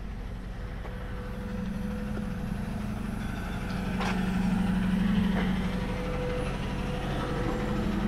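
Diesel semi-truck engine running with a steady low hum that grows a little louder toward the middle and then eases off. A single light click comes about four seconds in.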